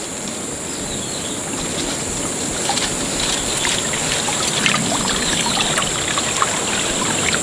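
Water splashing and trickling as a green mesh collapsible fish trap is hauled up through shallow ditch water, water draining out of the netting, with small splashes that grow louder toward the end.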